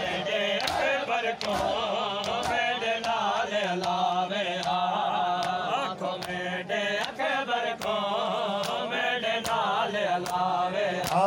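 Noha lament chanted by male voices, with a crowd's chest-beating (matam) strikes landing in rhythm about once every three-quarters of a second.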